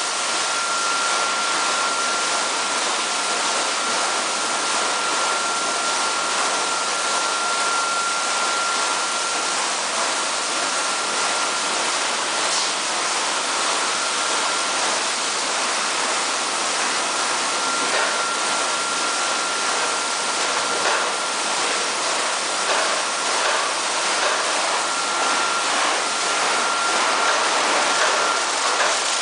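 Automatic tunnel car wash running: water jets spraying over a car body and rotating brushes scrubbing, giving a steady rushing hiss. A thin steady high whine from the machinery runs through much of it, dropping out in the middle and coming back later.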